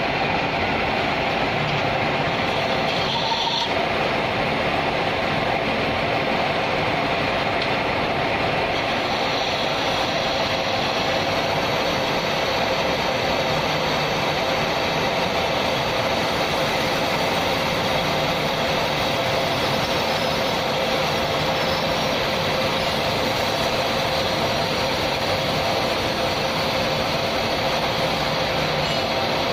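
Metal lathe turning a steel bar, the cutting tool peeling off curling chips. It makes a steady machine running noise with a constant hum and a high hiss from the cut, which grows a little brighter about nine seconds in.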